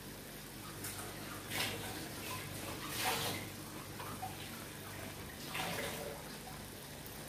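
Thick liver masala bubbling and sizzling in an aluminium pot on a gas stove, with about four short louder spurts of sizzle, the loudest near the middle, over a steady low hum.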